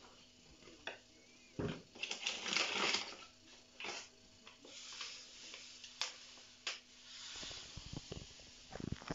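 Rustling of a plastic sugar bag and sugar being poured into a plastic yogurt cup used as a measure, with a few light clicks and knocks of the cup and bag on the counter.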